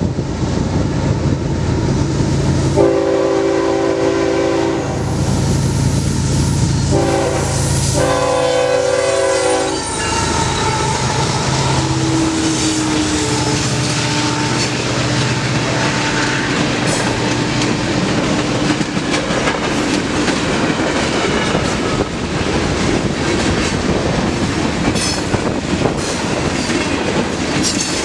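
Freight train led by three diesel locomotives passing close by: the lead locomotive sounds its chord horn in a long blast, then a short one and a long one, over the running of the engines, followed by the steady clickety-clack and rumble of the freight cars rolling past.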